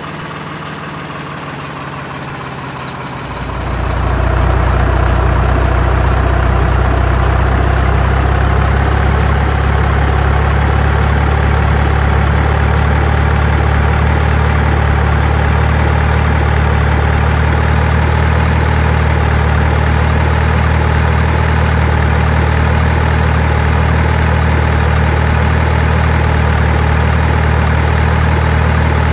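Excavator engine running with a steady low hum, stepping up to a louder, steady level about three and a half seconds in, as when the engine is throttled up to work.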